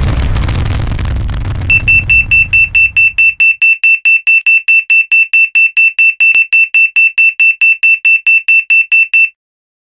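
Electronic alarm beeping rapidly, about four high-pitched beeps a second, starting near two seconds in and stopping shortly before the end. At the start a loud rumbling noise dies away over the first few seconds.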